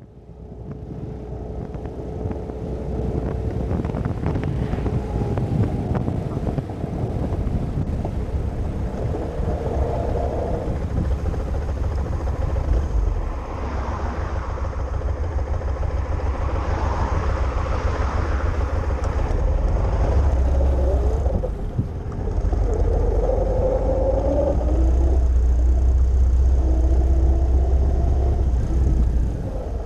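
Kawasaki Vulcan 1500 Nomad's V-twin engine running under way, with heavy wind rumble on the microphone. The engine note rises and falls as the speed changes, with brief dips in loudness about two-thirds of the way through and near the end.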